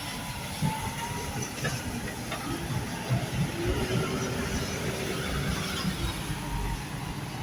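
Diesel engine of a working loader running with a low rumble. A steady whine comes in about two and a half seconds in and fades around six seconds, with a few light clanks.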